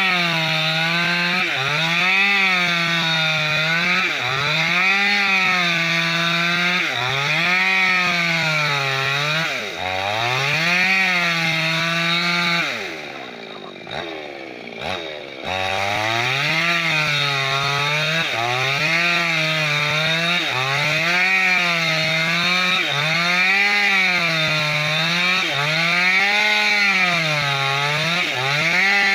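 Two-stroke New West 568 chainsaw ripping a bayur log lengthwise into planks, its engine pitch rising and falling about every two seconds as the chain bites and frees in the cut. About thirteen seconds in the throttle drops off and the engine slows to a lower, quieter note for a couple of seconds, then revs back up and cuts on.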